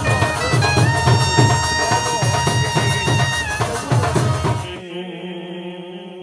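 Devotional music with a steady rhythmic drum beat under a long held, wavering melody line. About five seconds in the drumming stops abruptly and a steady drone of held tones takes over, like a harmonium holding chords.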